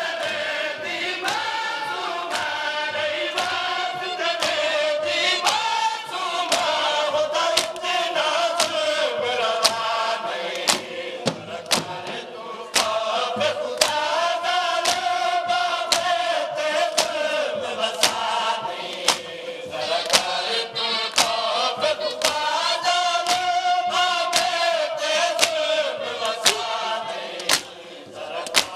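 Men chanting a noha, a Shia lament, in unison, with sharp slaps of matam (chest-beating) keeping a steady beat under the singing.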